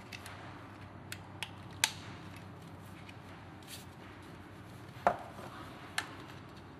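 Sharp small clicks and taps of hard parts, about six scattered across the seconds, the loudest near two seconds and five seconds in. The clicks come from carbon brushes being fitted into the red plastic motor housing of a Flex LW1509 wet sander-polisher.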